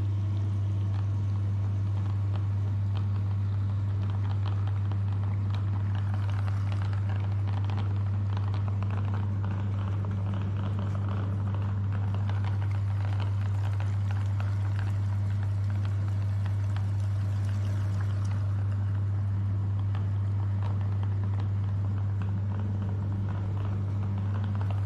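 Electric meat grinder motor running steadily with a deep, constant hum.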